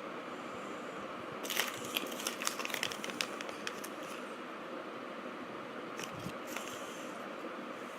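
Small plastic pieces, presumably from a Kinder Joy egg and its toy, being handled: a quick run of clicks and crinkles about a second and a half in, and another short burst near the end, over a steady hiss.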